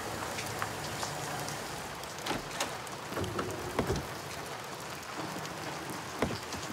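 Steady rain-like hiss of a wet street, with a few soft knocks and clicks about two to four seconds in and once more near the end.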